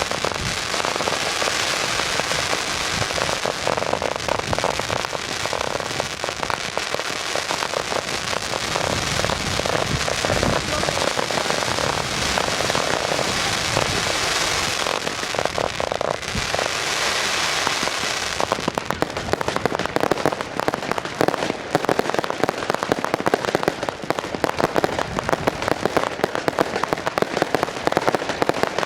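Closing fireworks display going off without pause: a dense, continuous crackle of many small pops, breaking into a choppier run of sharp cracks and bangs in the last third.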